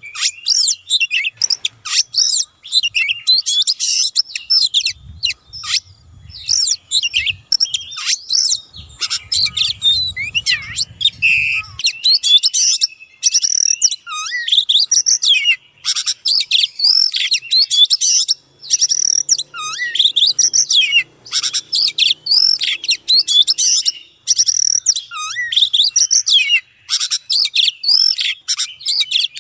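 Oriental magpie-robin singing a fast, unbroken song of varied whistles, trills and chirps.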